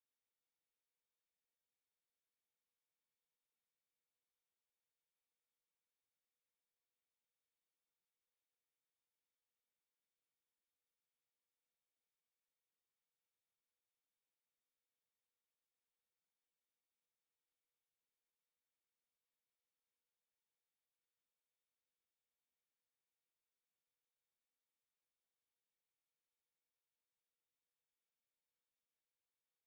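Steady 7777 Hz sine-wave test tone, a single high-pitched pure tone held unchanged throughout.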